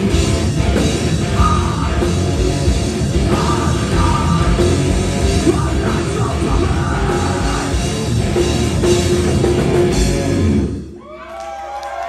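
Live hard rock band playing loud distorted electric guitars over a drum kit through the final bars of a song. The music cuts off abruptly about eleven seconds in, and the crowd starts cheering and whooping.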